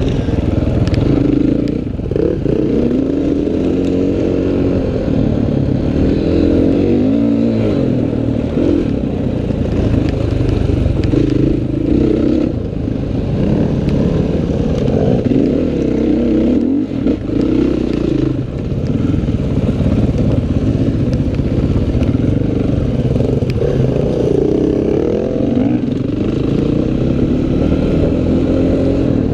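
Dirt bike engine revving hard and backing off again and again as it is ridden round a motocross track, heard close up from the rider's helmet camera.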